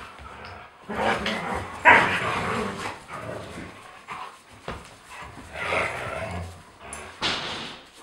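Several huskies barking and yipping in a handful of short bursts, the loudest about two seconds in.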